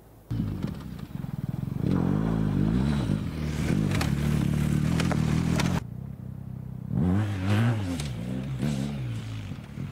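BMW R 1250 GS's boxer-twin engine revving hard under acceleration, its pitch rising and falling with the throttle and gear changes. The sound cuts off abruptly about six seconds in, then revs up again a second later.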